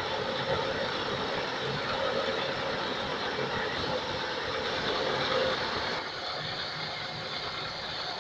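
Mobile rice threshing machine running steadily, a dense even mechanical noise; slightly quieter from about six seconds in.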